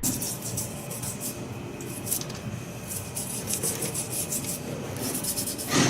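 A brush worked over the rear leaf springs of a UAZ Patriot makes a steady run of rough rubbing, scraping strokes. This is part of cleaning and oiling the springs to stop them squeaking.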